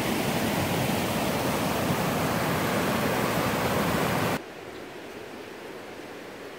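Whitewater rapids of the Thunder River rushing over a rock ledge: a steady, loud roar of water that drops off suddenly about four seconds in to a much quieter hiss.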